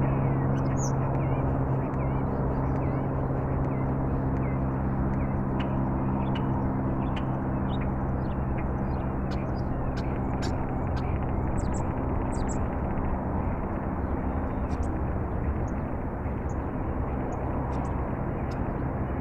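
Small birds chirping in many short high calls over a steady low mechanical drone; the drone's tone fades near the end.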